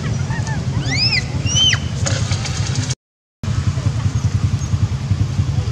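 Steady low rumble with a rapid pulsing flutter, with two or three short high calls that rise and fall in pitch about a second in. The sound cuts out for a moment about three seconds in.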